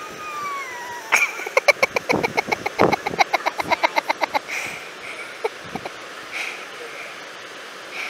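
A person's long scream, sliding down in pitch, as the rider sets off down the zipline. It is followed by a fast, even string of short cries or pulses, about six a second, for some three seconds. After that comes a steady hiss of wind and surf.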